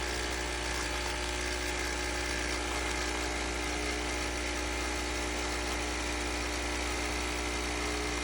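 Steady electric hum and whir of a running Nespresso CitiZ coffee set, holding one even pitch throughout.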